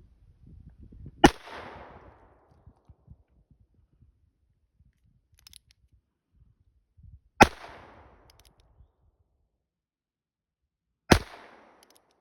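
Three single shots from a Heritage .22 revolver, about six seconds and then about four seconds apart, each a sharp crack with a short trailing echo.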